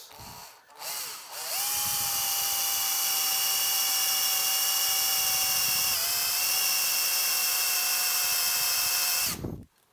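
Hand-held power drill boring a pilot hole through a metal amplifier chassis with a sharp twist bit. The bit is cutting cleanly and throwing chips. The drill runs up about a second in, holds a steady whine for about eight seconds with a brief dip about six seconds in, then stops suddenly.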